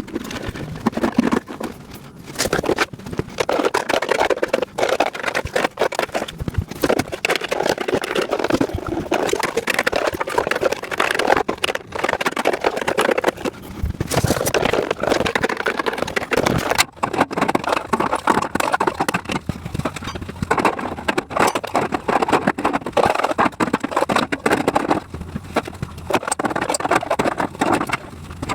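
Plastic parts bins and rack pieces clattering and knocking as they are handled and fitted onto a parts storage rack, many short irregular knocks throughout.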